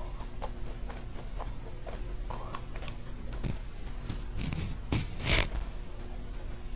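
Close-miked eating sounds of a shell macaron: small crackles of its crisp shell and soft mouth clicks, with one louder crunchy bite a little over five seconds in.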